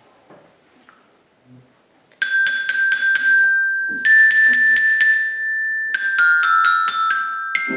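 Children's colour-barred metallophones struck with mallets. After a quiet first two seconds, one ringing note is played several times, then a slightly higher note is repeated, then quicker notes step down to end on a higher one.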